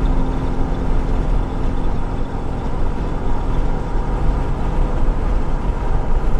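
Steady in-cab noise of a 2003 Dodge Ram 2500 pickup with its 5.9-litre Cummins turbo-diesel cruising at highway speed: engine drone and road rumble, heaviest in the low end.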